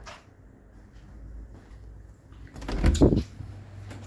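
A door being opened: one short knock-and-rub about three seconds in.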